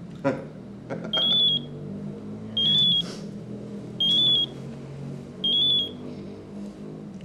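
Mobile phone ringing with a high, trilling electronic ring. It rings four times, about a second and a half apart.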